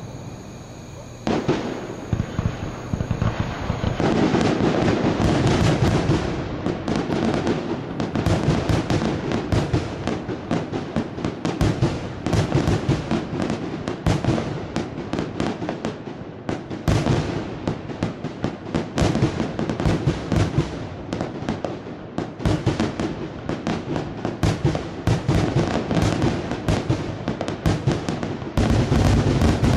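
1.3G consumer aerial fireworks going off in a dense, continuous barrage of bangs and crackling. It starts about a second in, thickens from about four seconds in, and swells again near the end.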